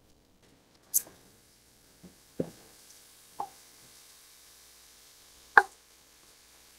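A few separate knocks and thuds, sharpest about a second in and loudest near the end, as a pot is set on a glass-ceramic cooktop and seasoned chicken drumsticks are dropped into its hot oil. A faint hiss runs behind them from about a second in.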